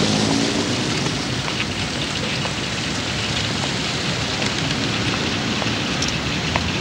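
Steady hiss of outdoor street noise over a wet cobbled city square, with a low rumble underneath and a few faint clicks.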